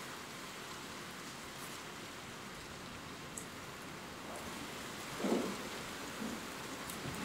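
Steady rain, with a few faint drop ticks. About five seconds in, a low rumble of distant thunder swells and rolls on to the end.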